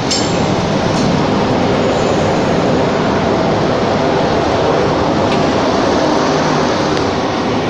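Indian Railways double-decker passenger coaches passing close by: a loud, steady rumble of steel wheels on the rails, with a few faint clicks.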